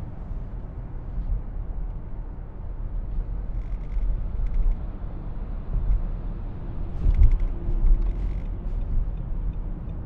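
Steady road and engine rumble inside a car cruising on an expressway. Two short bursts of rapid chattering, about four and seven seconds in.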